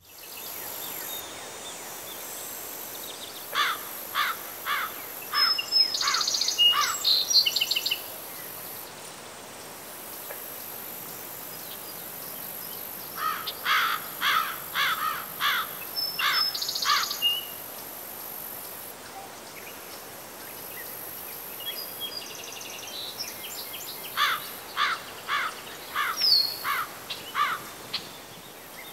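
A songbird sings three times, about ten seconds apart, each phrase a quick run of short, sharp, descending notes ending in a few higher squeaky notes, over a steady high insect hum.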